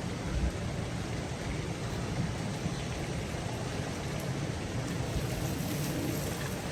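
Strong wind blowing: a steady rushing noise with an uneven low rumble of gusts buffeting the microphone.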